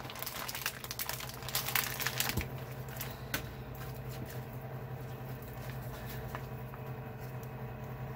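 Plastic bacon packaging crinkling and rustling, with small clicks and soft squishes as a slab of raw thick-cut bacon is pulled out of it onto a wooden cutting board. The handling noise is busiest in the first few seconds, over a low steady hum.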